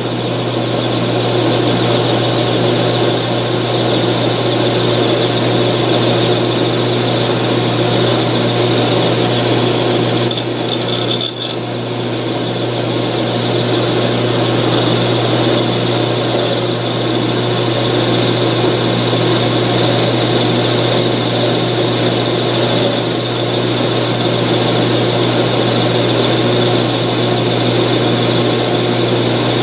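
12-inch Craftsman (Atlas-built) metal lathe running with a cutoff tool parting off a round blank: a steady motor and spindle hum with cutting noise over it, dipping briefly about 11 seconds in.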